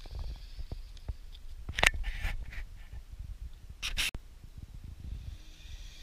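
A Lego RC car driven by four buggy motors running on concrete: a faint high motor whine with two short, loud scraping bursts about two and four seconds in, over a low rumble with small knocks.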